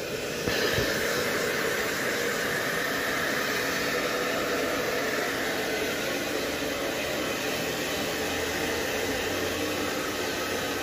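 Electric hair dryer blowing steadily, a continuous rushing hiss, drying a dog's wet fur after its bath.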